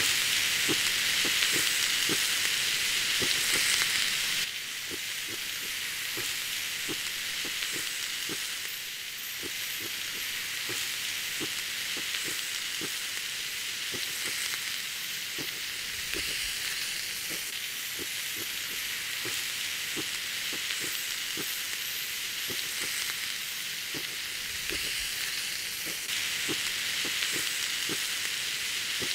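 Tri-tip steak sizzling on a hot ribbed grill pan over a wood fire: a steady frying hiss with frequent small pops and crackles, a little louder for the first four seconds or so.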